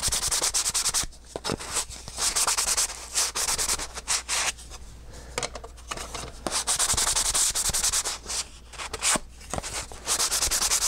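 Hand sanding of laser-cut wooden discs with a sanding sponge: quick back-and-forth rubbing strokes in several bursts with short pauses, taking the roughness off the laser-cut pieces.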